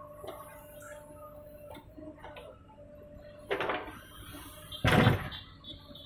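JCB 3DX backhoe loader's diesel engine running with a steady hum and light ticking, while the backhoe arm swings the bucket from the trolley down into the pit. Two loud clanks come about three and a half and five seconds in, the second the loudest.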